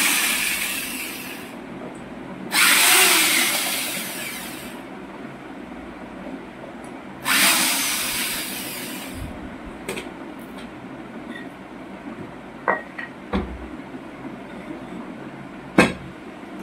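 Cordless drill spinning out the side-cover screws of an electric scooter hub motor in three runs of about two seconds each, each starting hard and dying away. A few sharp knocks and clicks of handling follow, the loudest near the end.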